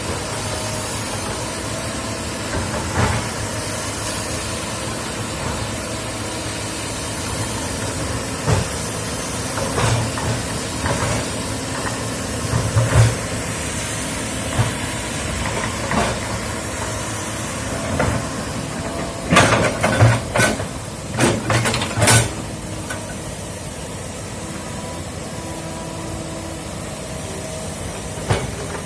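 Heavy excavator diesel engine running steadily, with sharp metallic clanks and knocks now and then, several in quick succession about two-thirds of the way through.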